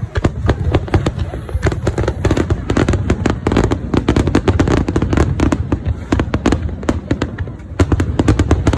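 Fireworks going off in quick succession: dense crackling and popping, many sharp reports a second, over a continuous low rumble of bursts.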